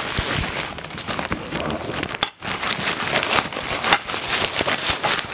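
Nylon tent carry bag rustling and crinkling as it is handled and opened, with many small crackles and a brief lull a little past two seconds in.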